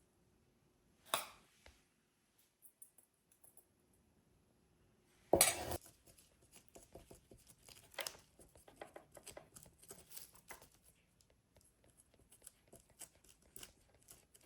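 Plastic Ziploc bags being handled: a loud crinkle about five seconds in, then scattered soft rustles and small taps, with a single knock about a second in.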